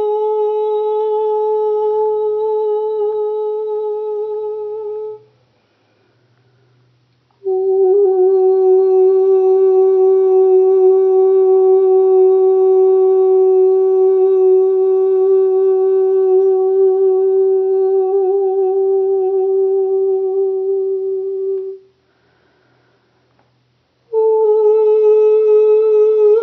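A woman's voice toning long sustained notes without words, in the style of meditative 'light singing'. One note ends about five seconds in, a slightly lower note is held for about fourteen seconds, and after a two-second pause a higher note begins near the end.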